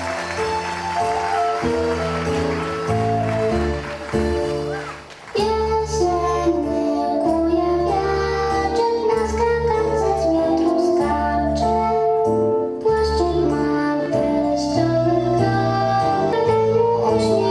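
Music with a steady beat and a bright melody, accompanying a children's dance. It thins out about four seconds in and comes back fuller a second later.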